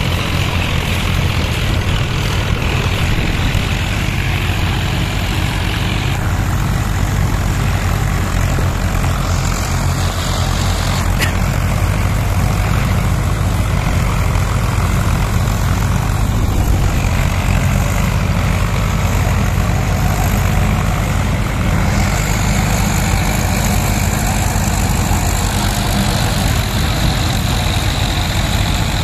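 Diesel engines of 4WD farm tractors running steadily, a loud low engine drone, as the tractors work rotavators through a flooded paddy field.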